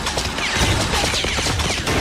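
Rapid sci-fi energy-blaster fire in an animated robot battle: a fast volley of shots, several with a falling-pitch zap, over a low rumble.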